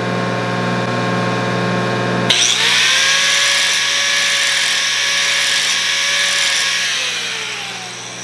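Small handheld angle grinder starting up about two seconds in and grinding a bevel onto the edge of a cast iron straight edge casting, then switched off and winding down near the end. The bevel is ground so the planer's cut won't tear out the edge. A steady machine hum runs underneath throughout.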